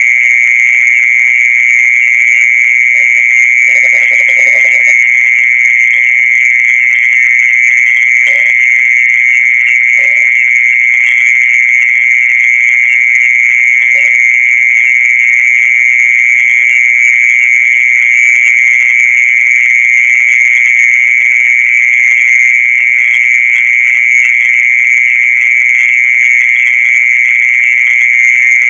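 Continuous, high-pitched, unbroken insect trill, the night-time call popularly known in Indonesia as the 'earthworm sound' but made by a mole cricket. A few short, lower croaking calls sound in the first half.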